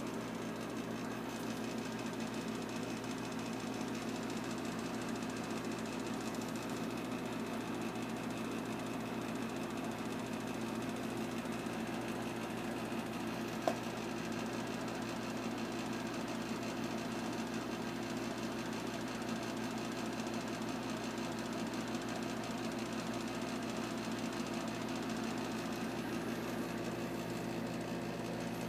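Steady mechanical hum with a fast buzzing rattle, and a single short click about halfway through.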